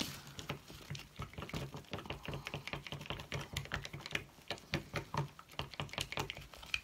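Wooden craft stick stirring a thick acrylic paint and varnish mix in a small plastic cup, knocking and scraping against the cup's sides in quick, irregular clicks.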